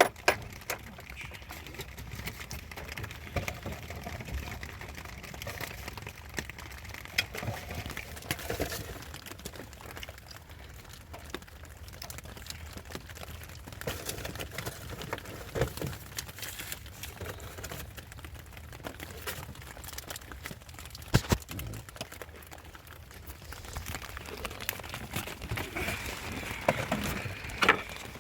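Hands working on engine parts: scattered small clicks, taps and knocks with some rustling, over a steady low background hum.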